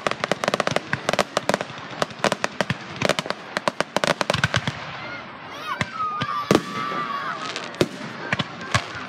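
Fireworks going off: a dense run of rapid crackling pops through roughly the first five seconds, thinning to a few separate loud bangs over the rest.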